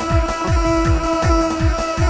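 Arabic wedding dance music: an end-blown flute holds one long steady note over a fast electronic kick-drum beat of about four thumps a second.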